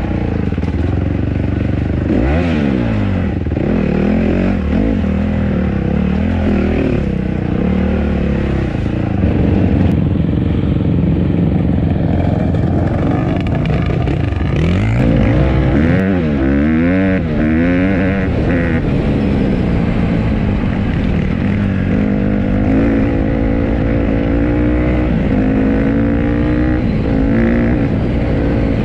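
Honda CRF150RB dirt bike's single-cylinder four-stroke engine running under way, its pitch rising and falling again and again with the throttle, with a run of quick rev blips around the middle.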